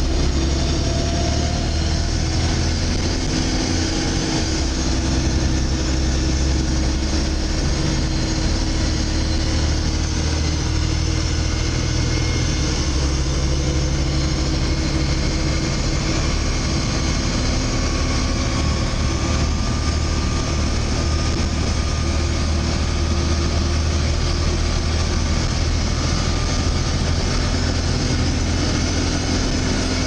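Volvo B7TL double-decker bus's six-cylinder diesel engine running steadily, a low rumble heard from inside the upper deck.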